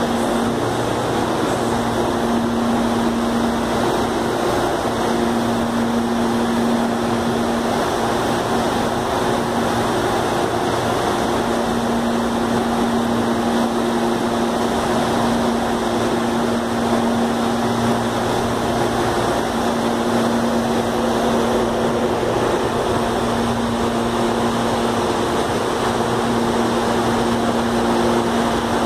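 Steady hum of an electric train standing at the platform, its air conditioning and other on-board equipment running. A low tone keeps cutting in and out every few seconds.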